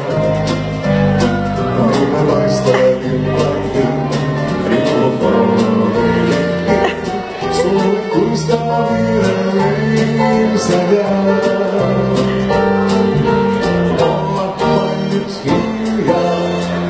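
Music: a song with singing over guitar, a moving bass line and a steady beat.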